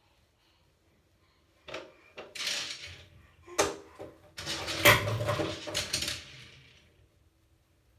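Handling noise of long box braids being twisted and wound into a bun on top of the head: rustling with sharp clicks, starting about two seconds in, loudest about five seconds in, and dying away near the end.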